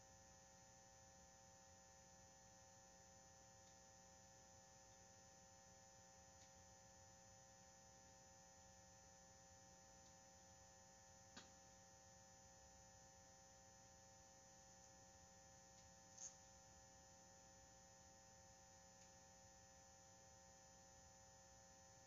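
Near silence: faint steady hum as room tone, with a faint click about halfway through and another a few seconds later.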